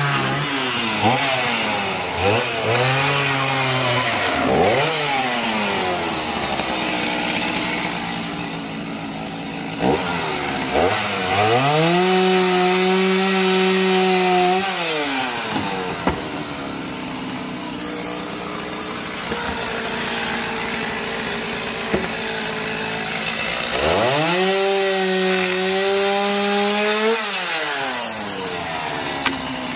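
Gasoline chainsaw revved in several short bursts, then held at high revs for about three seconds twice, dropping back to idle in between as it cuts into the wooden posts of a backyard play set.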